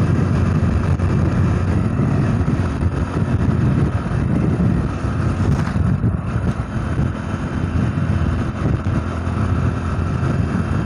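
Motorcycle engine running steadily at cruising speed, mixed with wind and road noise on the microphone.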